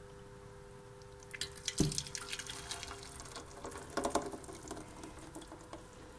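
Thick blended kiwi-and-lime puree poured from a glass blender jug into a bread maker's nonstick baking pan. It splashes and drips, starting about a second in and going on for several seconds.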